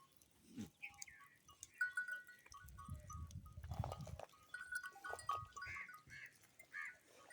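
Goats bleating in several short calls, mixed with brief high ringing tones. A low rumbling noise comes for about a second and a half near the middle.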